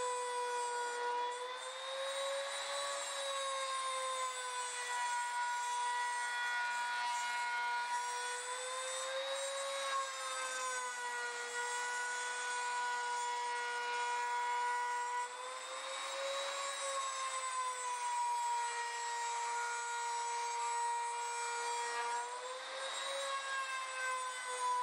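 Hand-held router running steadily while it cuts an inspection hole in aluminum wing skin along a template. It gives a high, even whine that rises briefly in pitch about four times as the cut goes on.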